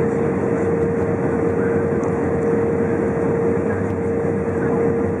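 Steady jet-airliner cabin noise inside an Airbus A320 on approach: engine and airflow noise with a constant hum.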